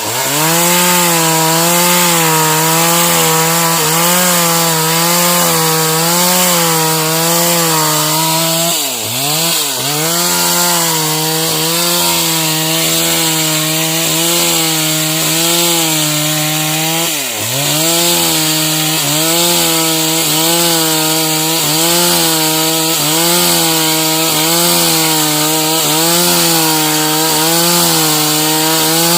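Stihl MS 381 two-stroke chainsaw running at full throttle while cutting sengon wood, its high engine note wavering under load. The revs drop sharply and pick back up about a third of the way in, again past the middle, and once more at the end.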